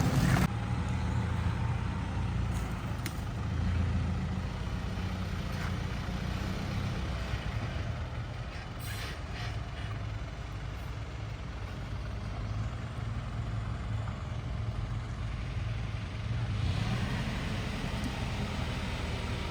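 Dump truck's engine running steadily with a low rumble, easing off somewhat midway and picking up again near the end.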